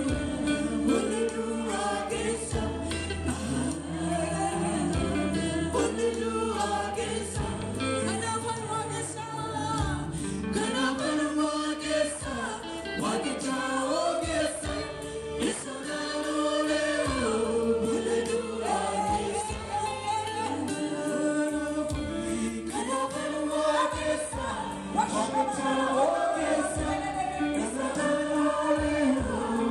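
Gospel worship song sung by a group of male and female singers on microphones, over amplified accompaniment with a sustained low bass line.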